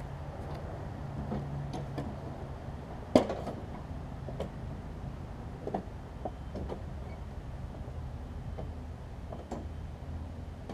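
Footsteps on a concrete driveway and a few knocks and clunks as a person climbs onto a Troy-Bilt Bronco riding mower, the loudest knock about three seconds in, over a steady low hum.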